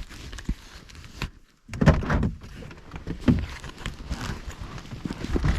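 Truck door thunks and the rustle and knocks of someone climbing out and moving about, in irregular bumps and shuffles from about two seconds in.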